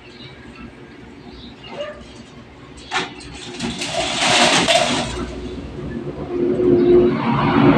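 Chain-link cage mesh knocking and rattling as a monkey clambers on it and drops to the ground, with a sharp knock about three seconds in followed by a second or so of rattling. A motor engine rises in the background near the end.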